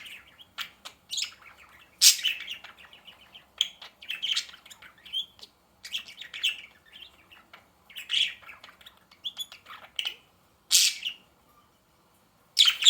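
Pet budgerigars chirping in quick, irregular bursts of short calls, with a brief lull near the end before one loud call.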